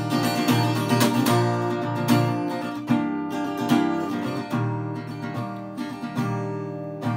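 Acoustic guitar strummed in a steady rhythm, played solo with no voice: an instrumental break in a plaintive 1980s indie-style ballad.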